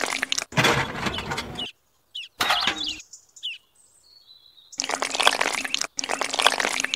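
Wet cement slurry pouring and splattering in several bursts of about a second each, with short gaps between.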